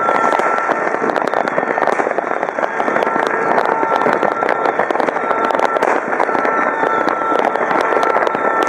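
Many fireworks and firecrackers going off at once: a dense, unbroken crackle of overlapping bangs and pops.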